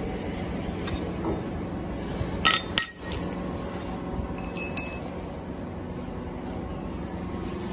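Metallic clinks with a short ringing tone, a cluster about two and a half seconds in and another near five seconds, from tools and fittings knocking on the rotocure's steel frame as it is assembled. Under them runs a steady factory hum.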